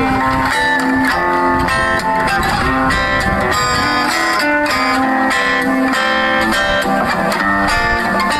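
Background music led by a plucked guitar, its notes steady.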